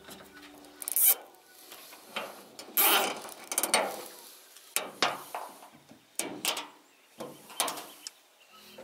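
Electrical cables being pulled, routed and fastened along the back of a solar panel and its aluminium mounting frame: a series of short, irregular rustling and scraping strokes.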